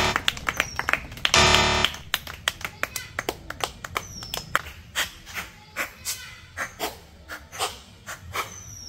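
Ping pong balls bouncing and clattering on a board table and the ground: many sharp, irregular clicks that grow sparser and fainter. About a second and a half in, a loud 'wrong answer' buzzer sound effect marks a missed throw.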